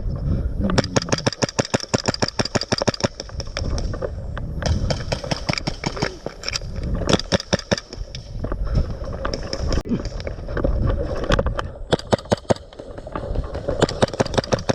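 Airsoft electric rifles firing rapid full-auto bursts: strings of sharp clacks at roughly a dozen a second, several times over, above a steady hiss.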